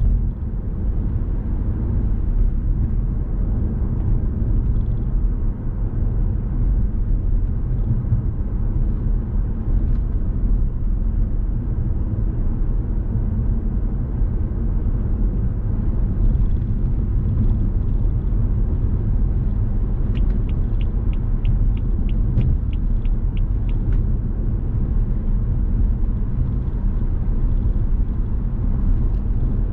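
A car driving, with a steady low rumble of road and engine noise. About two-thirds of the way through, a run of about a dozen quick, even ticks, around three a second, goes on for a few seconds.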